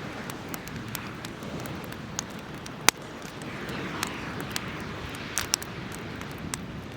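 Wood fire burning in a fire pit, crackling with irregular sharp pops over a steady hiss of flames; one pop just under three seconds in is the loudest.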